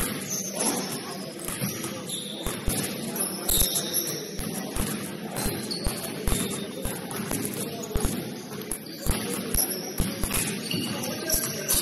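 Basketball game play: a ball bouncing on the court and feet thudding, many short sharp thuds at irregular spacing, with brief high sneaker squeaks over a steady hall background.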